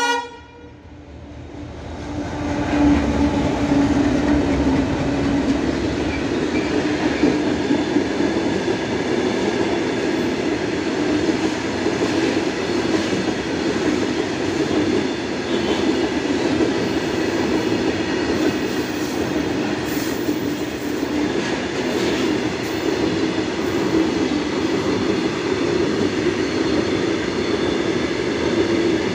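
Indian Railways goods train rolling past, the steady rumble and clatter of its wagons' wheels on the rails, swelling about two seconds in and then holding steady.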